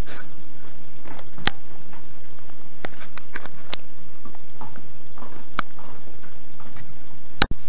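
Dog gnawing and mouthing a slobbery chew or bone, its teeth giving scattered sharp clicks and ticks over a steady hiss.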